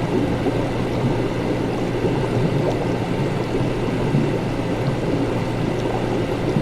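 Laboratory ambience: liquid bubbling and gurgling continuously over a steady low hum.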